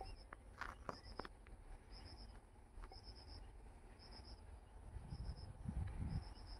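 Insect chirping in short, high triple pulses about once a second. A few faint clicks are heard, and a low rumble swells near the end.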